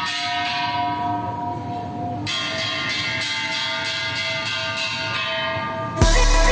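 Bright bell chimes ringing in sustained overlapping tones over a faint, regular ticking. A new set of tones comes in about two seconds in, and the sound cuts off abruptly near the end.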